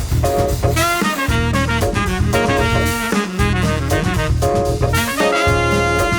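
Upbeat swing-jazz background music with brass, over a steady pulsing bass beat.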